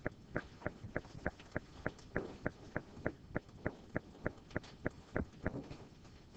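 A quick, even series of light clicks or taps, about three a second, that stops about five and a half seconds in.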